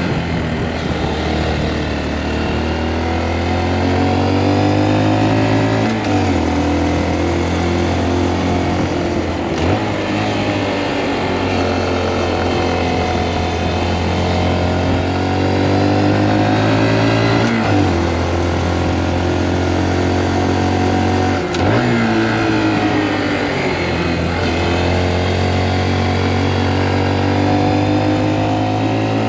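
Honda Monkey 125's single-cylinder four-stroke engine pulling under load on a twisting road, its note rising and falling with the throttle. It is broken by about five gear changes: downshifts with throttle blips and upshifts through the five-speed gearbox.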